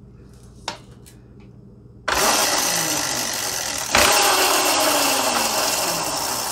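Razor E300 electric scooter's chain-driven motor spinning the rear wheel under throttle on its first power-up after a new controller and lithium batteries were fitted, and it runs. A small click, then the motor starts abruptly with a loud whirring about two seconds in. It surges again about four seconds in, its pitch sliding down after each start.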